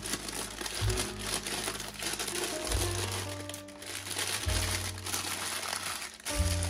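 Baking paper crinkling and rustling as hands fold and press it around a roll of minced meat. This plays over background music of slow, held notes with a deep bass.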